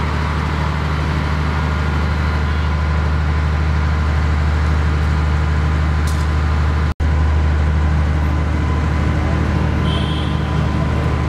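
Steady low drone of a large engine running at constant speed on heavy construction machinery. It cuts out for an instant about seven seconds in.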